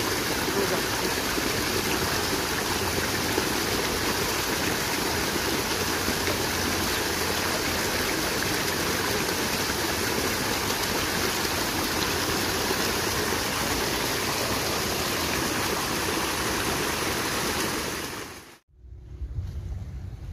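Steady rush of a flowing stream, an even hiss of running water. It cuts off suddenly near the end, and a quieter low rumble follows.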